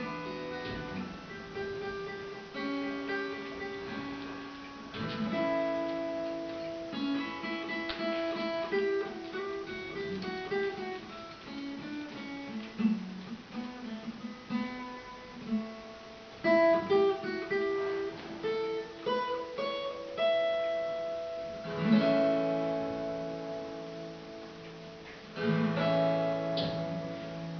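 Acoustic guitar playing, strummed chords mixed with picked single notes that ring on.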